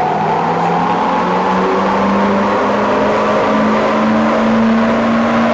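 2013 Ford 6.7L Power Stroke V8 turbodiesel on its stock turbocharger, pulling under full load on a chassis dyno. Its pitch rises steadily as the revs climb.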